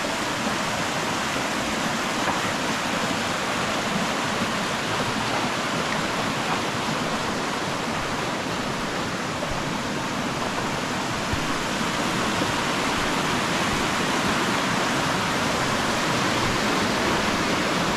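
Steady rushing of flowing water, an even, unbroken hiss.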